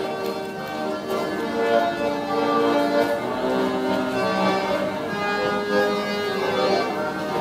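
Instrumental background music with long held melodic notes.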